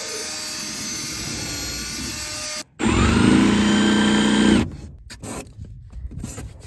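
Power drill running in two bursts: a steady whine, a short pause, then a louder, lower-pitched run that spins up and stops about four and a half seconds in. Softer rubbing and scraping follows.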